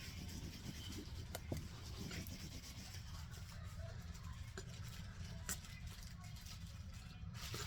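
Someone chewing raw cornstarch: faint crunching and mouth sounds with a few sharp clicks, over a low steady hum.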